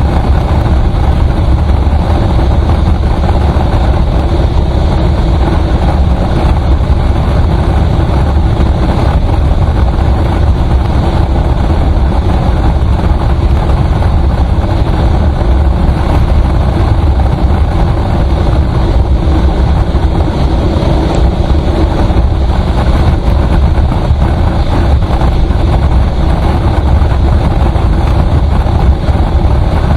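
Vehicle travelling on a highway: a steady, loud rumble of road and wind noise with a low engine drone, unchanging throughout.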